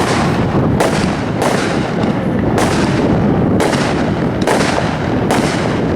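A 500-gram consumer fireworks cake (Legend Fight for Our Future) firing repeatedly, with a sharp shot about once a second over a continuous dense din.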